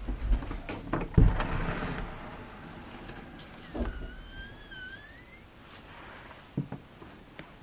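A few knocks and thumps, the loudest about a second in, then a door hinge creaking: a high squeak that wavers up and down for about two seconds.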